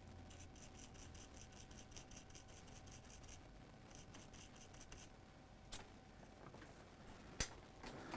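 Faint scrubbing of a small brush's bristles across a laptop logic board, in quick, even strokes, then a pause and a second short run. Two short clicks come near the end.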